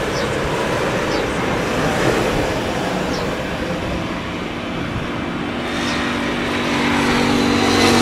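Jet engines of an approaching Airbus A320, IAE V2500 turbofans at approach power, heard as a dense rush mixed with gusty wind noise. A steady hum comes in about halfway, and a high whine near the end, as the sound grows louder while the jet nears the runway.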